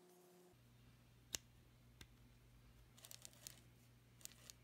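Near silence broken by a few faint small clicks as the carbon brushes of a Hitachi starter are pushed into their holder one at a time and the springs set behind them. One clearer click comes about a second in, then a scatter of small ones later.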